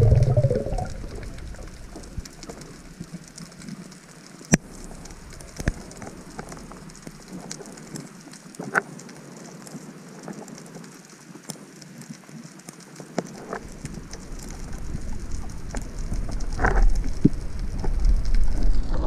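Underwater ambience: a steady fizz of scattered crackles and clicks, with one sharper click about four and a half seconds in. A low rush of water moving past the microphone fades away at the start and builds again near the end.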